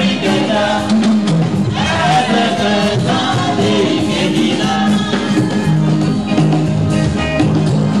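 Church choir singing into microphones, amplified over loudspeakers, with Yamaha electronic keyboard accompaniment and a steady beat.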